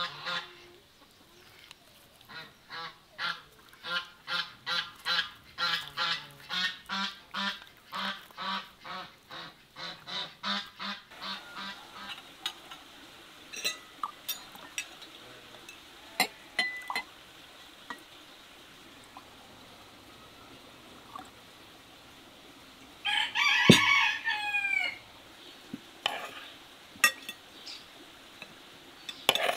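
Domestic farmyard fowl calling: a run of rhythmic calls about twice a second for several seconds, then a single loud call over a second long that falls in pitch at its end. Light clinks of cutlery and dishes come in between.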